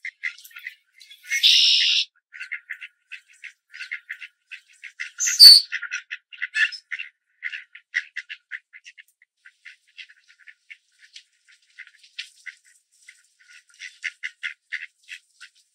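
Mallard ducks giving many short, raspy quacks in quick runs. There is a brief harsh burst about a second and a half in and a single sharp click, the loudest sound, around five and a half seconds in.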